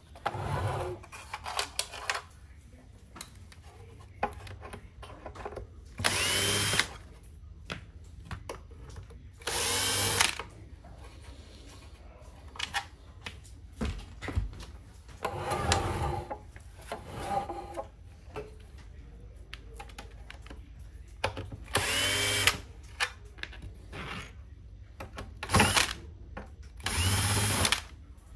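Cordless drill/driver running in short bursts of about a second, about six times, each spinning up in pitch as it drives screws on the pump head of a Kärcher HD 585 pressure washer, with clicks and rattles of metal parts being handled between bursts.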